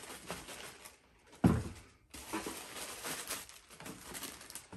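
Paper wrapping in a sneaker box rustling and crinkling as it is handled and the shoes are lifted out. One loud thump about a second and a half in.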